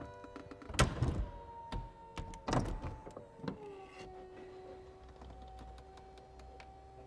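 BMW 4 Series Convertible's three-piece retractable hardtop closing. Its electro-hydraulic pump whines steadily, with three loud clunks from the roof mechanism in the first half. The whine drops in pitch about three and a half seconds in.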